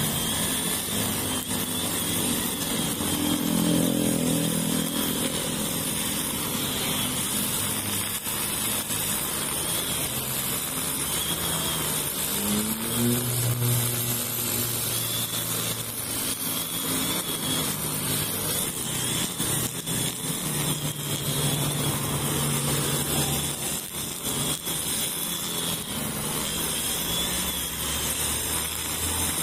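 Honda GX35 four-stroke brush cutter running steadily with a high whine that wavers slightly, its 2.2 mm nylon trimmer line cutting roadside grass. Road traffic passes alongside at times, one vehicle's engine note rising about twelve seconds in.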